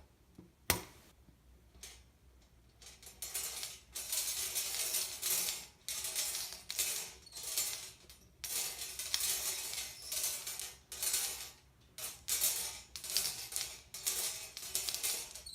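Small hard pieces rattling as they are shaken in a container, in repeated bursts about a second long, after a single sharp click near the start. This is a random draw of a winning number.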